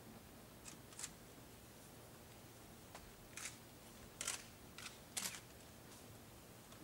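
About six short, sharp clicks at irregular intervals over a faint steady hiss, the loudest pair a little past the middle.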